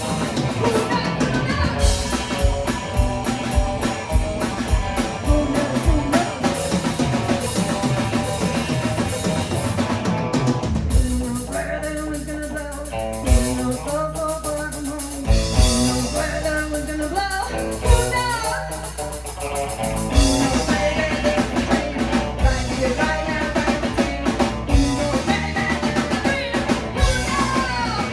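Live band playing a rock song on drum kit and guitar. About 11 seconds in, the drums thin out to a few scattered hits over a held bass. The full band comes back in around 20 seconds.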